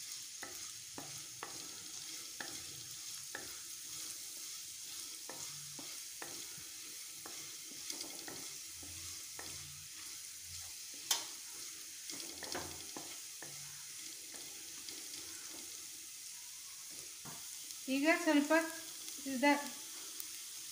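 Chopped garlic sizzling gently in ghee in a nonstick pan while a wooden spatula stirs it, scraping and tapping irregularly against the pan, with one sharper knock about eleven seconds in.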